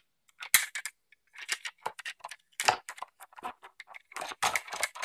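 Hard plastic toys clicking and clattering against each other as they are handled, in quick irregular bursts of small knocks.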